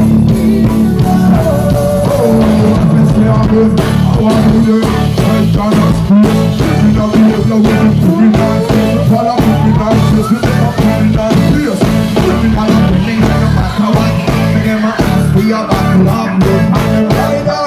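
Live reggae band playing an instrumental passage with a heavy, steady bass line and guitar. A sweep glides up in pitch midway, and glides run back down near the end.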